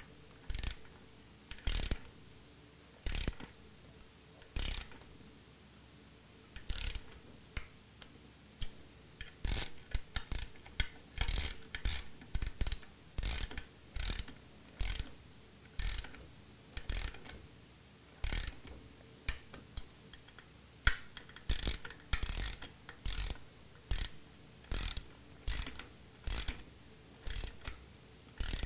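Ratcheting torque wrench clicking in short bursts as the oil screen cover nuts are run down and torqued to 60 inch-pounds. The bursts come about once a second or so, closer together in the middle.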